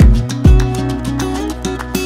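Background music with a steady beat: a melody of short stepping notes over deep bass notes, with a heavy bass hit at the start and another about half a second in.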